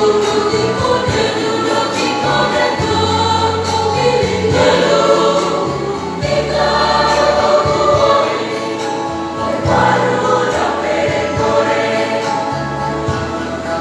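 School choir singing.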